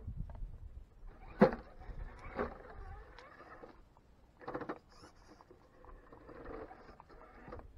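Element Enduro Sendero RC rock crawler climbing over sandstone. Its small electric motor and gears whine in short spurts while the tyres scrabble and the chassis knocks on the rock. One sharp knock comes about a second and a half in.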